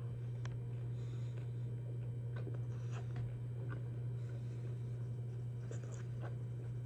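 A steady low hum with faint, scattered clicks of someone chewing a bite of smoked beef steak strip.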